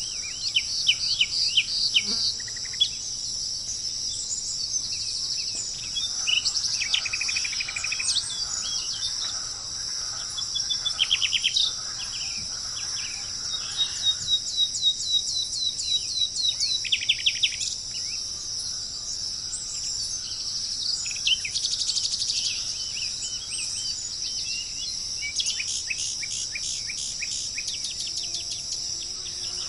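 Tropical forest ambience: a steady, high insect drone with birds chirping over it in quick series of short notes, the busiest bursts about a second in, around seven, eleven, fifteen to seventeen seconds in and again near the end.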